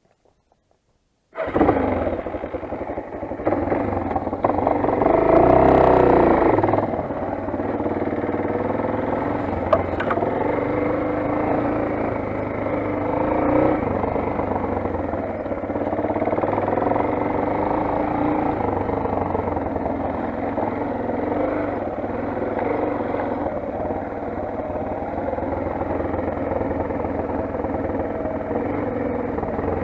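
Motoland XR 250 enduro motorcycle's single-cylinder four-stroke engine running. The sound cuts in abruptly about a second and a half in, swells briefly a few seconds later, then runs steadily.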